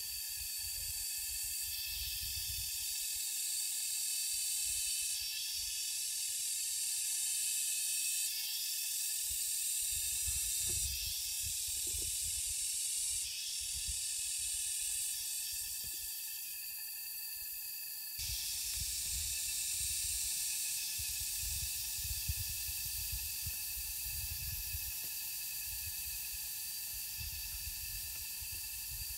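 Forest ambience: a steady high hiss with several steady high-pitched whining tones from insects, and a low rumble that comes and goes. The mix shifts abruptly about eighteen seconds in.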